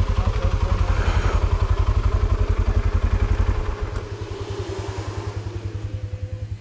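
ATV engine running at low revs with an even, pulsing beat close by. About four seconds in it drops noticeably in level and keeps running more quietly.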